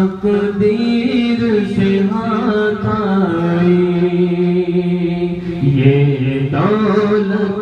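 A man singing a devotional Urdu kalam unaccompanied, holding long notes that waver and slide from pitch to pitch.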